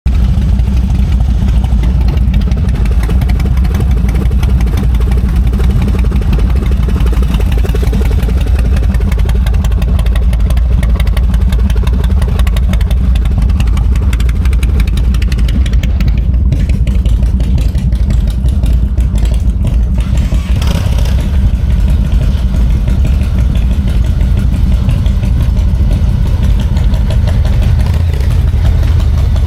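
Harley-Davidson V-twin motorcycle engine running steadily, loud and deep.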